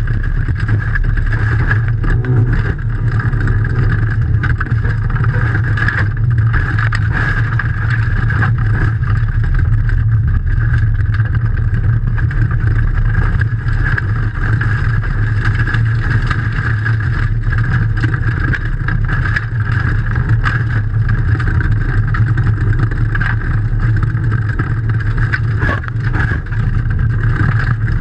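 Rally car engine running hard at high revs, heard from inside the cabin, with gravel stones clattering against the underbody.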